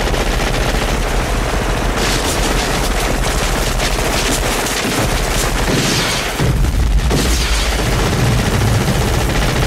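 Rapid AR-15 rifle fire in 5.56, the shots running together into one continuous, loud, distorted roar.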